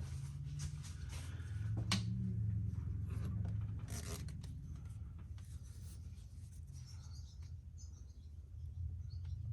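Light rubbing, scraping and clicking of small parts being handled, with one sharp click about two seconds in. The likely source is the rebuilt fuel injectors and fuel rail being moved into place. A steady low hum runs underneath.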